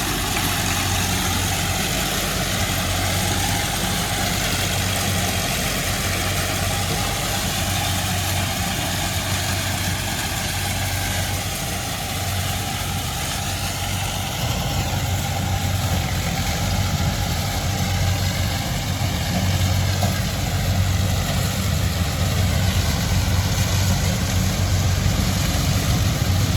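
Engine of a Moline farm machine running steadily while harvesting corn, growing somewhat louder about two-thirds of the way through.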